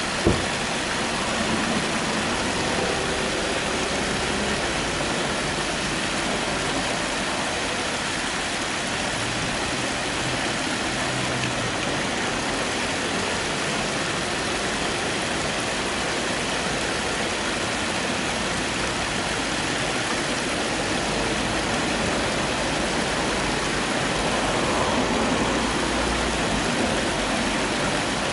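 Shallow stream flowing over pebbles: a steady rush of running water. One sharp click right at the start.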